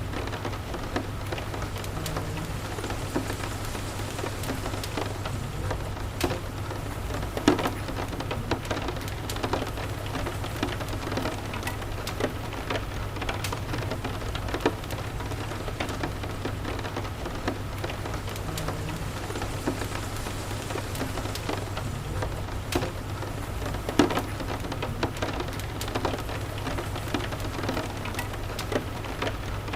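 Steady rain with a low continuous rumble, and a crackling wood fire adding scattered sharp pops, two of them louder, about a third of the way in and about four-fifths in.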